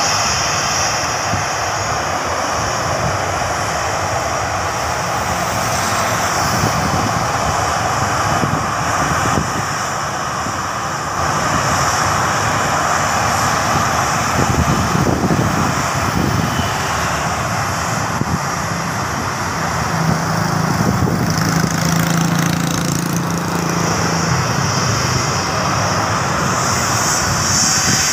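Jet engines of a Lion Air Boeing 737 running steadily on the runway while it is still on the ground, before its takeoff roll. A motorcycle passes close by about halfway through.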